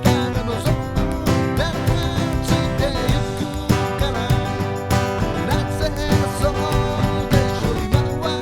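Background music: country-style tune with plucked acoustic guitar and a steady beat.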